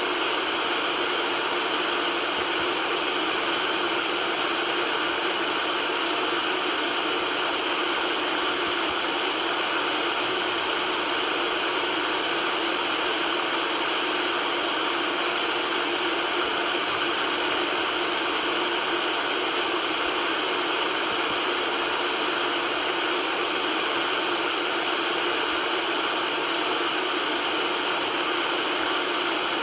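Steady white noise, an even hiss with most of its energy in the upper range and little bass, unchanging throughout.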